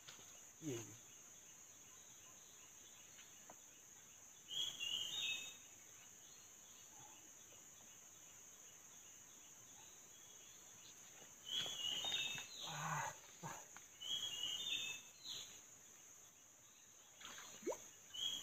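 A forest bird repeating a short stepped whistled call four times, several seconds apart, over a steady high-pitched insect drone. A brief rustling, handling noise comes about two-thirds of the way through.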